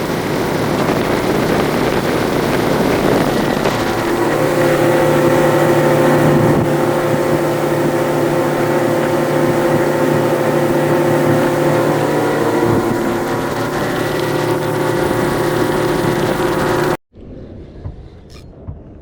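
A 150 hp outboard motor pushing a bass boat along at speed: a steady engine drone over a broad rushing noise. The engine note settles into a steady pitch about four seconds in, and the sound cuts off suddenly near the end.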